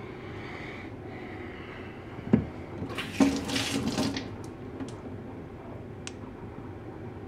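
A wet sharpening stone being set onto a metal stone holder over a sink: one knock, then about a second of splashing water, then a few light clicks.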